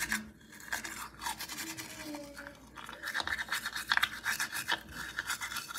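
Manual toothbrush scrubbing teeth, a rapid scratchy back-and-forth of bristles that gets busier and louder about three seconds in.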